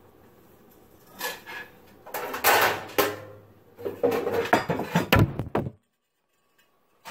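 Knocks and clattering from a camera being handled and fixed above a kitchen counter, ending in a heavy thud as the camera falls. The sound then cuts off suddenly into silence.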